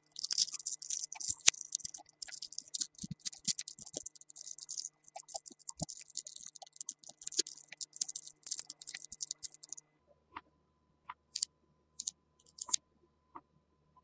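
Many small magnetic balls clicking and rattling against each other in a dense crackle, which stops about ten seconds in and gives way to a few separate single clicks.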